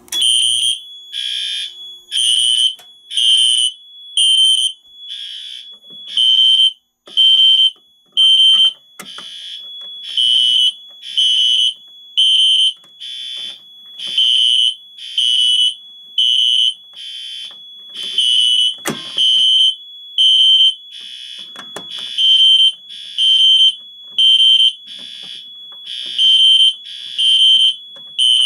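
Fire alarm system in alarm: several high-pitched fire alarm horns pulsing about once a second, not quite in step with each other, over a continuous high tone from another sounder. A single sharp click comes about two-thirds of the way through.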